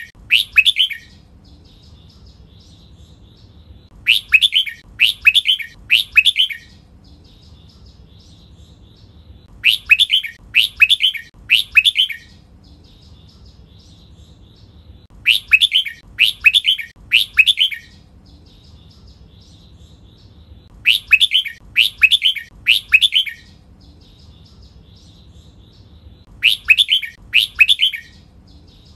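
Red-whiskered bulbul singing. A short phrase of three or four loud, falling notes repeats about every five and a half seconds, with soft chattering notes between the phrases.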